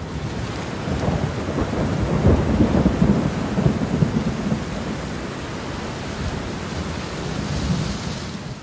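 Steady rain with thunder rumbling, the rumble heaviest about two to four seconds in.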